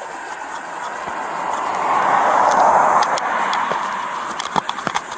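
A car passing by on the road: its tyre and engine noise swells to a peak about halfway through and then fades away. A few sharp clicks near the end.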